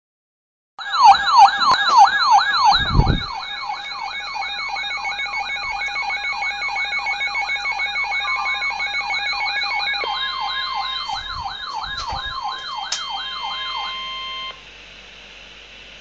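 Weather radio receiver's warbling siren alarm, sweeping up and down several times a second, sounding a flash flood warning; the steady 1050 Hz NOAA Weather Radio warning tone joins it partway through. A low thump about three seconds in, and both alarm sounds cut off about fourteen and a half seconds in, leaving radio hiss.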